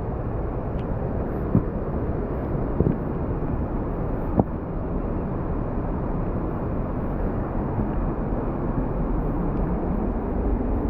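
Steady low rumble of wind buffeting the microphone outdoors, with a few soft knocks about a second and a half apart near the start.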